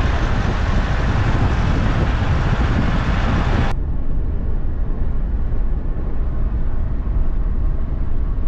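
Mitsubishi Triton ute driving on a dirt road: tyre and wind noise heard from a camera mounted outside the door, then about four seconds in it cuts to the duller engine and road noise inside the cab.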